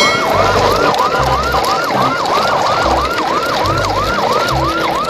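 An electronic siren in a fast yelp, its pitch swooping down and up about three times a second, with low thumps beneath it.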